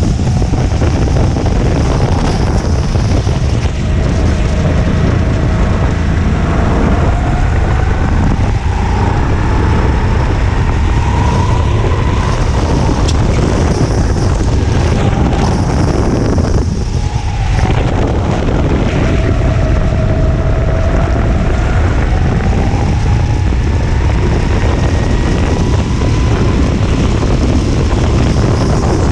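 Racing go-kart engine heard from on board at full race pace, its note climbing slowly along the straights and dropping back into the corners, with a brief lift off the throttle about 17 seconds in. Heavy wind buffeting on the microphone underneath.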